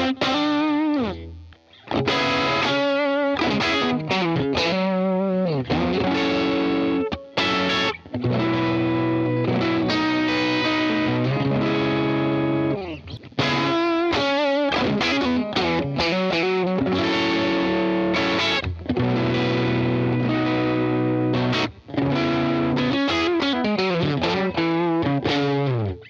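Stratocaster-style electric guitar playing an overdriven riff through a Fender '55 Tweed Deluxe amp plug-in with compression, in repeated phrases separated by brief breaks.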